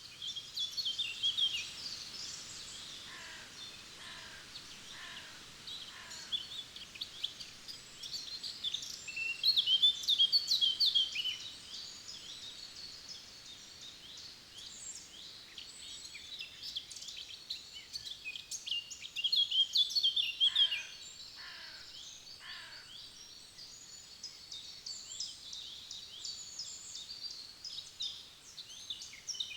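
A chorus of several songbirds in a forest, with overlapping high chirps and trills that swell into louder song twice. Twice, a run of four lower falling notes comes about a second apart.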